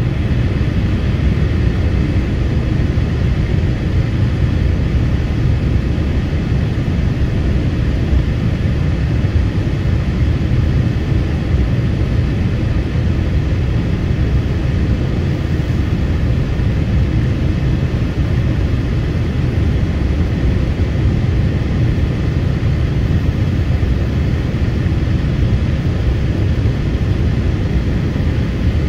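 Cabin noise inside a Boeing 787-8 Dreamliner on approach to land: a steady, loud rumble of airflow and Rolls-Royce Trent 1000 engines, with faint steady tones above it.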